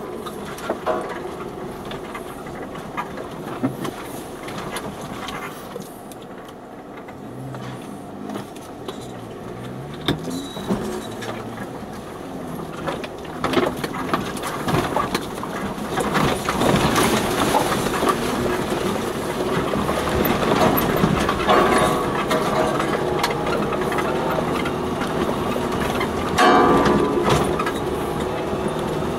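Cabin noise of a 4x4 driving slowly down a rough, overgrown green lane: engine running, with frequent knocks and rattles as it bumps over the ruts, getting louder about halfway through.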